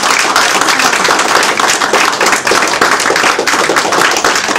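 A small crowd applauding, with dense, continuous clapping.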